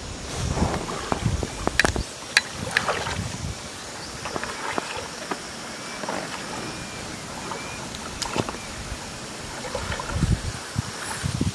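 A person wading through a shallow river, the water sloshing and splashing around the legs with scattered sharp splashes. Low gusts of wind buffet the microphone at the start and again near the end.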